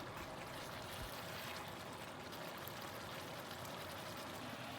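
Chicken curry simmering in a pan on high heat: a faint, steady bubbling hiss.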